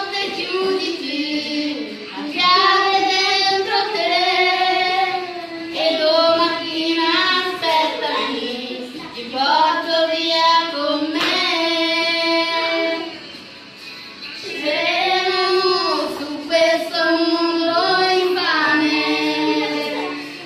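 A woman singing into a handheld microphone: a melody in phrases of a second or two, with several long held notes and a brief pause about two-thirds of the way through.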